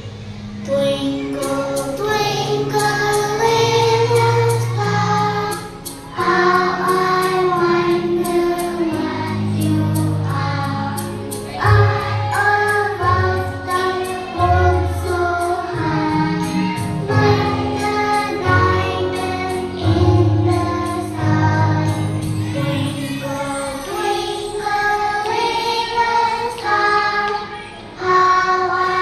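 A group of young children singing together in unison over a recorded backing track with sustained low bass notes.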